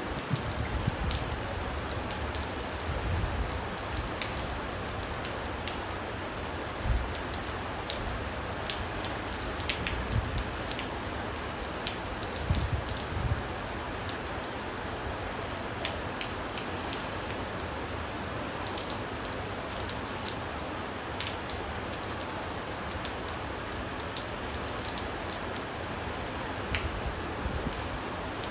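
Steady rain falling, with a constant hiss and individual drops ticking close by. A few low rumbles swell and fade in the first half.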